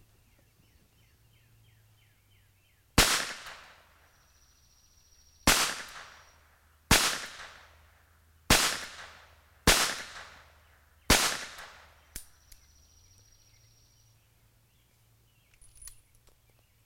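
Webley & Scott Mark IV .38 S&W revolver fired six times, each shot a sharp crack that rings off, spaced about one to two and a half seconds apart. Near the end come faint metallic clicks as the top-break action is opened and the spent cases are ejected.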